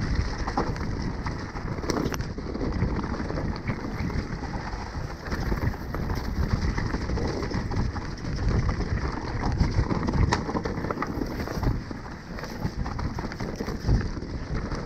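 Mountain bike descending fast on a wet, leaf-covered dirt trail: a steady rumble of the tyres rolling over leaves and dirt, with the bike rattling in quick clicks and knocks over bumps, one loud knock near the end.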